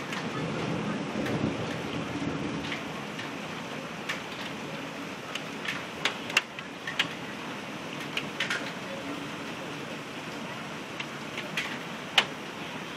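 Heavy rain and hail falling in a steady hiss, with scattered sharp clicks of hailstones striking close by, the loudest near the end. A low rumble sits under the hiss for the first few seconds.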